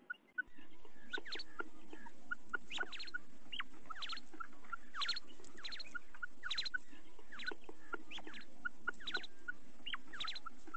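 Common quail calls, presented as the female's call: quick, sharp, short notes repeated over and over, many in clusters of two or three, over a steady hiss. About half a second in, the sound jumps louder and hissier.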